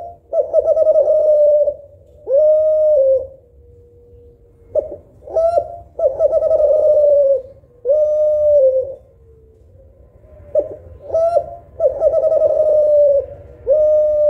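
Spotted dove of the Kelantan type (derkuku) cooing in repeated phrases. Each phrase opens with a few short notes, then a long quavering coo and a shorter closing coo, and repeats about every five to six seconds.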